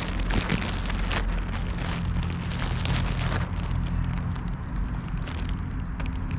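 A motor vehicle engine running with a steady low hum, under a rough hiss with crackling noise. The hum weakens a little past halfway.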